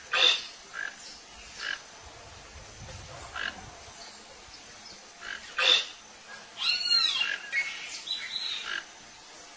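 Short animal calls at irregular intervals, coming closer together in the second half.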